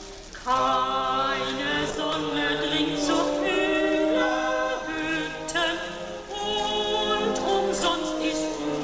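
Several voices singing together on stage, holding notes with vibrato.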